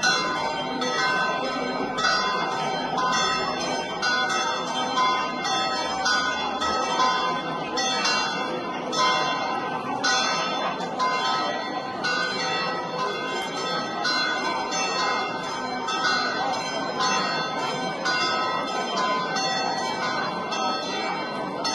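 Church bells pealing in quick, continuous succession, each stroke ringing on over the next in a festive peal.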